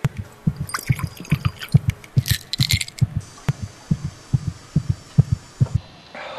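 Heartbeat sound effect: fast double thumps, about two beats a second, that stop shortly before the end.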